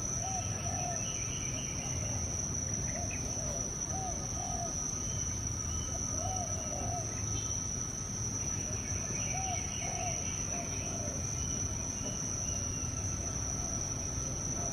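Steady high-pitched insect drone, with a bird repeating a pair of short low notes every two to three seconds and fainter chirping above.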